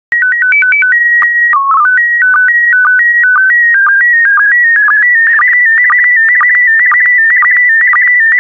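Slow-scan TV (SSTV) signal in PD120 mode starting: a quick run of alternating beeps, a held tone and a brief low dip for the mode header, then the steady warbling image-data tone with regular short low blips for the line sync.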